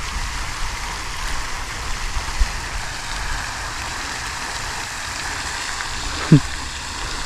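Steady outdoor hiss with an uneven low wind rumble on the microphone.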